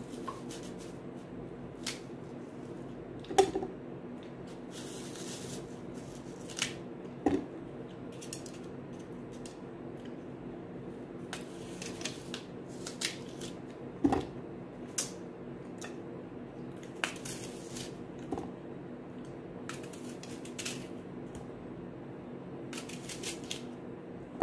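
Knife cutting slices off a crisp green apple held in the hand: a string of short, crisp cuts at an irregular pace, with a few louder sharp knocks along the way.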